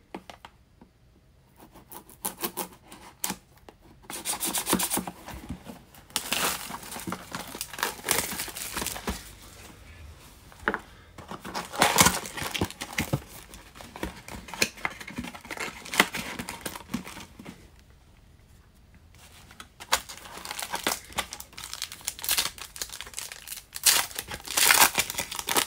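Cellophane shrink wrap being torn off a trading-card box and crinkled in the hands, then a foil card pack being torn open near the end. The crackling comes in irregular bursts, with a short pause about two-thirds of the way through.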